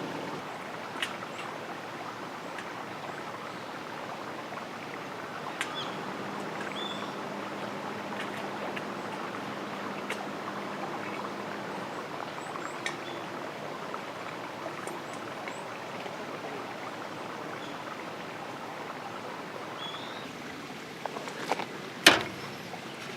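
Steady rushing outdoor background noise, like a stream or wind through trees, with scattered light clicks and a few short high chirps. There is a sharp knock about 22 seconds in.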